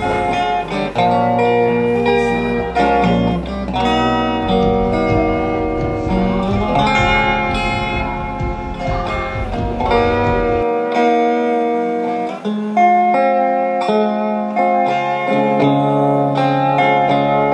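Background music led by guitar, with sustained notes throughout; the low bass part drops out about two-thirds of the way through.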